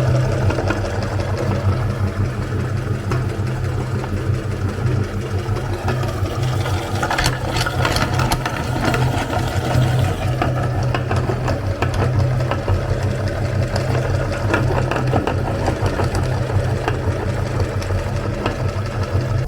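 Electric meat grinder running steadily, its motor humming while it grinds soap, with scattered crackles and clicks that are thickest about seven seconds in.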